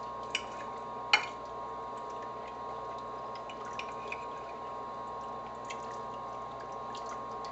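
Knife and fork cutting cooked chicken breast on a plate: a few light clicks of metal on the plate, with one sharper clink about a second in, over a steady background hum.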